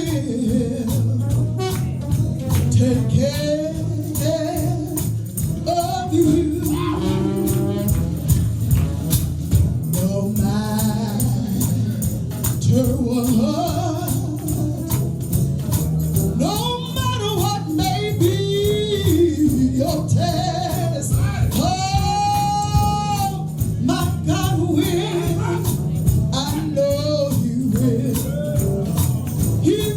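Gospel song with a lead singer's long, sliding held notes over a band, with a tambourine shaking steadily on the beat.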